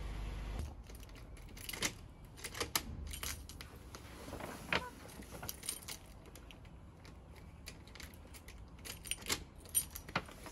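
A bunch of keys jangling and a key clicking and scraping in a glass door's lock in irregular fits and starts, as the house key proves hard to work.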